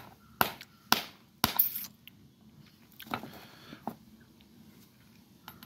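Pliers clicking and knocking against the plastic cooling-fan cover of an electric rickshaw motor: four sharp clicks in the first second and a half, then a couple of softer scraping sounds.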